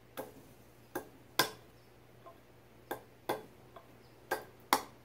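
Glass beer bottles knocking together in a run of sharp clinks, about two a second and unevenly spaced, as one bottle is used as a lever to pry the crown cap off another. The loudest clink comes about a second and a half in.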